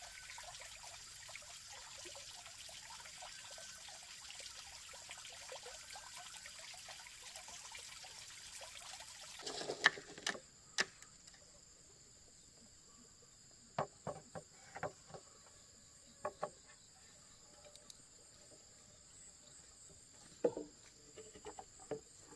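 Insects chirring steadily in a high, even drone, with sharp knocks of bamboo poles and wooden posts being handled: a cluster about ten seconds in and a few more scattered through the second half.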